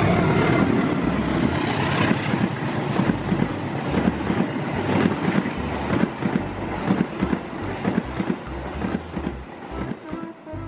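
Diesel-hauled passenger train passing close by at speed: the locomotive's loud rush at first, then the clatter of the coaches' wheels over the rails, slowly fading toward the end.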